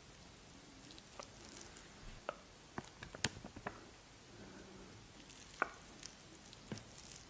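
Faint, scattered clicks and soft taps of makeup items being handled close to the microphone, with a sharper click a little past three seconds in and another past five seconds.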